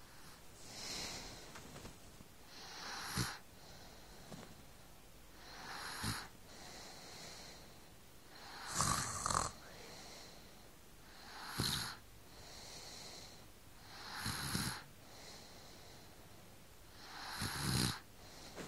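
A sleeping baby snoring: a noisy snore about every three seconds, seven in all, each ending in a short sharp catch, with softer breaths between.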